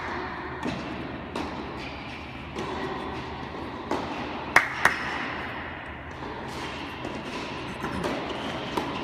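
Tennis rally: sharp racket strikes and ball bounces at irregular intervals, echoing in a large indoor tennis hall. The loudest pair of hits comes about four and a half seconds in, a third of a second apart.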